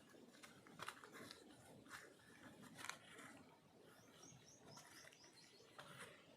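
Near silence with faint scattered clicks and rustles, and a bird calling once, a quick run of about eight short high chirps, about four seconds in.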